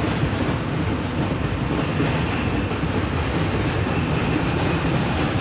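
Steady rushing wind noise, with gusts buffeting the microphone as a fluttering low rumble.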